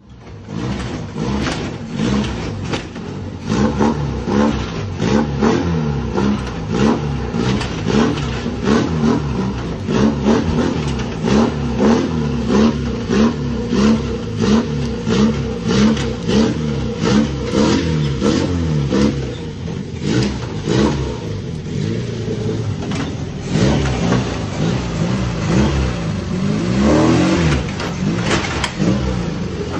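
A vehicle engine coughing and sputtering, its pitch repeatedly climbing and dropping, with sharp pops about twice a second as it misfires. It surges louder and higher near the end.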